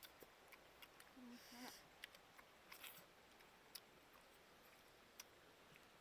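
Faint mouth clicks and smacks of people chewing and biting food. There is a short squeaky sound about a second in.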